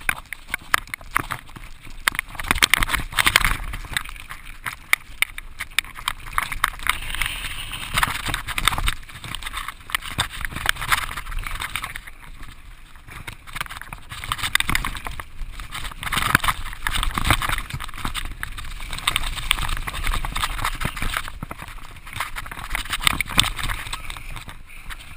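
Mountain bike riding fast over a rough, rocky dirt trail: a constant clatter of sharp knocks and rattles from the bike jolting over bumps, with tyre noise on dirt and wind rush, heard from a camera mounted on the handlebars.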